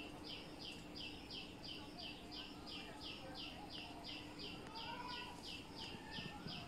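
An animal's high chirp repeated evenly, about three times a second, over a faint steady low hum.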